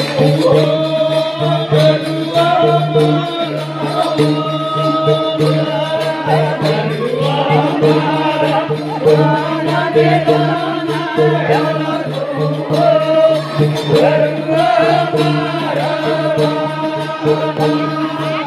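Vagdi devotional bhajan: a man sings a wavering melody over a steady drone, with a continuous jingling percussion beat and hand clapping.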